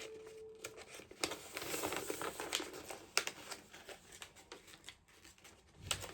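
Crinkling and rustling of toy packaging being handled, with scattered clicks and taps. A faint held tone fades out about half a second in.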